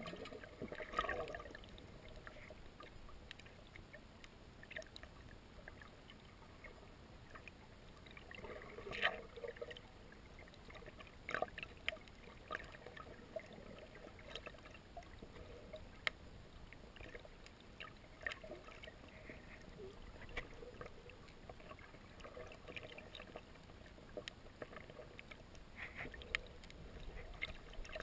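Muffled underwater sound picked up through a camera's waterproof housing: a faint wash of water noise with scattered sharp clicks and a few soft bumps, about a second in and again around the middle.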